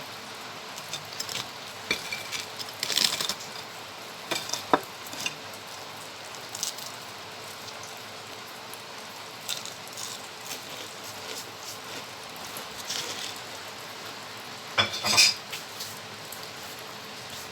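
Food frying in hot oil with a steady sizzle, and utensils clinking and scraping against a pan or dishes several times, loudest about three seconds in and again near the end.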